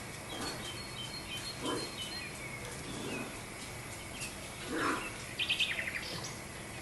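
Small birds chirping in short high notes, with a quick run of chirps about five and a half seconds in, and a few soft rustling sounds.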